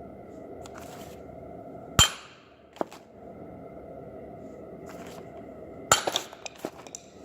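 A loud sharp knock about two seconds in, and another about six seconds in followed by a few lighter knocks, over a steady hum.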